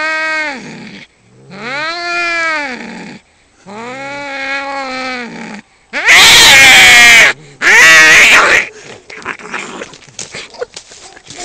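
Two domestic cats, a black-and-white cat and an orange tabby, fighting: three long drawn-out yowls that rise and fall in pitch, then two loud harsh screams about six seconds in, followed by quieter scuffling as they grapple.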